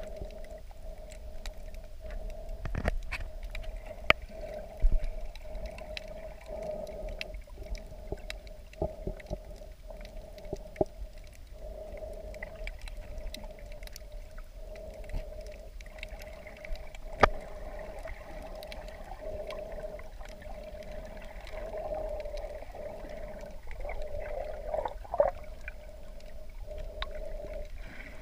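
Shallow reef water heard underwater: a steady muffled hum with scattered sharp clicks and a few louder knocks.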